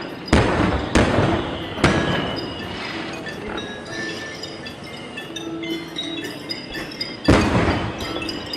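Consumer fireworks going off: three sharp bangs in the first two seconds and a louder one about seven seconds in. Between them come many short, high tinkling tones.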